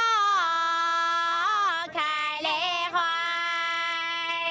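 Two women singing a Guangxi folk song (shan'ge) together, in long held notes with short ornamented turns in between, and a long held final note starting about two thirds of the way in.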